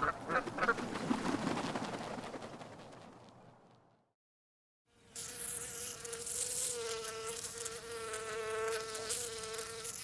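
A noisy sound fades away over the first few seconds; after a moment of silence a flying insect's steady buzz starts, holding one pitch with slight wavers.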